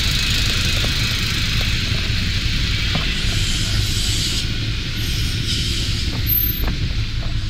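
Steady road noise of a moving car heard from inside the cabin: a low engine and tyre rumble with an even hiss.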